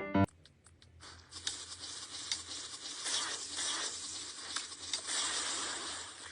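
Crinkling, rustling noise with many small scattered clicks, like paper or plastic being handled, over a faint steady low hum.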